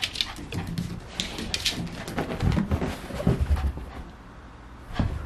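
Toy poodle racing around in post-bath zoomies: quick paw clicks and scuffs, with a run of heavier thumps around the middle, then quieter near the end.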